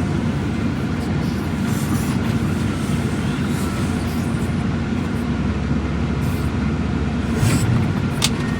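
Steady low rumble of a vehicle being driven, heard from inside the cab, with a sharp click near the end.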